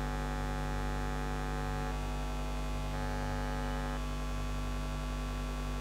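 Steady electrical mains hum with a faint buzz, with no other sound standing out.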